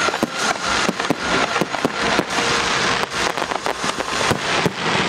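Fireworks going off in quick succession: a dense run of sharp bangs and crackling pops over a steady hiss.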